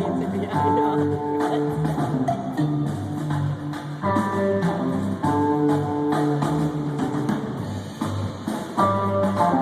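Rock band playing live at a soundcheck, heard through the venue's PA: sustained electric guitar lead notes over a steady drum beat and bass.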